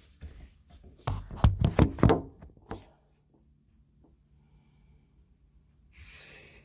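A quick cluster of knocks and rubbing thumps from a camera being handled and set in place in a window, then a faint steady hum and a short hiss near the end.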